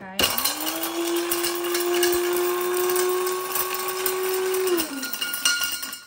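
Electric blade coffee grinder, used as a spice grinder, running to break up dried star anise pods. The motor spins up quickly, runs steady for about four and a half seconds with a crackling rattle of the pieces, then winds down, falling in pitch, near the end.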